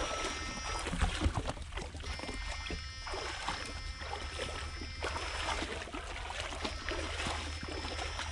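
Legs wading through knee-deep water, a steady sloshing and splashing. A faint high whine comes and goes twice over it.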